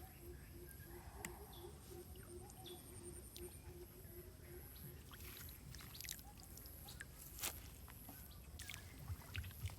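Faint outdoor ambience with a low steady rumble and scattered small clicks and splashes. For the first four seconds or so a creature calls in a quick run of short, low pulses, about four a second.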